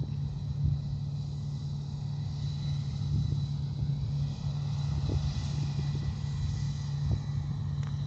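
Combine harvester engine running at a steady working pitch, a low even drone, with wind rumbling on the microphone.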